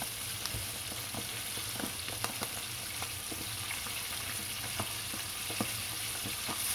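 Coated chicken drumsticks frying in hot oil just after being dropped in, a steady sizzle with scattered pops and crackles.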